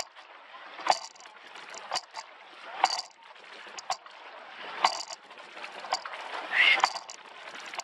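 Racing rowing shell under way: oars knocking in their oarlocks about once a second, with a rush of water and sliding between the knocks, in the rhythm of the crew's stroke.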